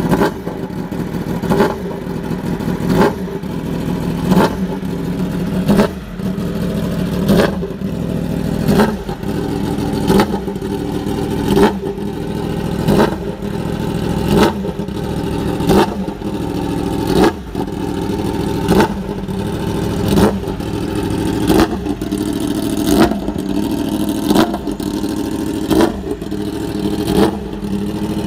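Yamaha YZF-R1 superbike's inline-four engine running through an aftermarket exhaust while it warms up. The throttle is blipped in short, sharp revs about every one and a half seconds, dropping back to a steady idle between them.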